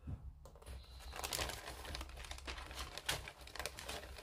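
Clear polythene bag crinkling and rustling in irregular crackles as a plastic model-kit sprue is handled inside it and drawn out.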